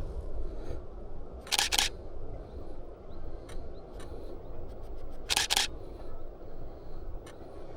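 DSLR camera shutter firing twice, about four seconds apart. Each release is a quick double click.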